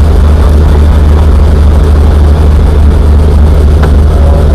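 Helicopter running: a loud, steady low drone of engine and rotor noise.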